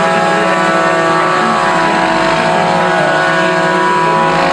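Stunt truck's engine running at steady high revs, holding one even pitch, while the truck drives balanced on two side wheels.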